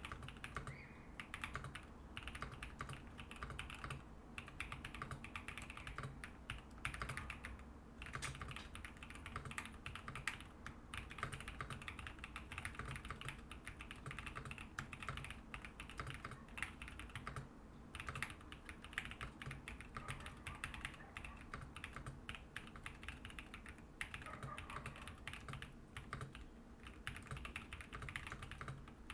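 Continuous typing on a GMK67 mechanical keyboard with Badseed V2 tactile switches and PBT keycaps, with a rapid stream of keystrokes broken by a few brief pauses.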